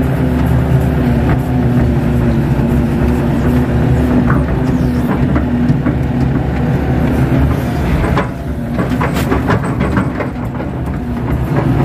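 Kato HD512E crawler excavator's diesel engine running steadily under hydraulic load, heard from inside the cab, as the arm digs and lifts wet mud. About eight seconds in comes a run of metallic clanks and knocks.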